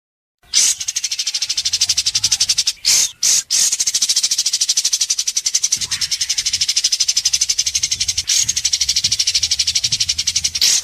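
White-rumped shama (murai batu) giving sharp besetan: a harsh, rapid rattling call of fast, even pulses, kept up for seconds on end, with a couple of short breaks about three seconds in.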